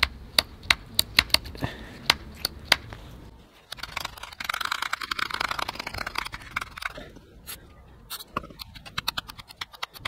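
Hazard-warning-light pull switch from a 1988 Rolls-Royce Silver Spirit being worked in and out by hand, clicking about three times a second, to spread freshly sprayed contact cleaner over its sticking contacts. A few seconds of rasping hiss in the middle, then a quicker run of clicks near the end.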